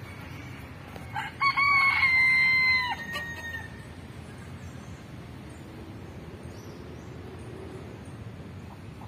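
Rooster crowing once: a couple of short notes, then one long held call that breaks off about three seconds in, over a steady low background hum.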